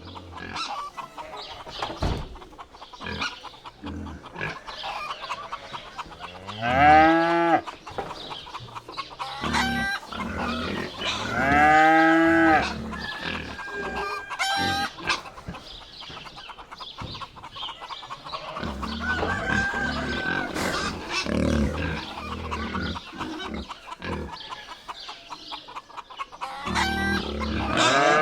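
Barnyard chickens clucking throughout, with a rooster crowing loudly about seven seconds in, again about twelve seconds in, and once more near the end. Lower calls from other farm animals come in past the middle.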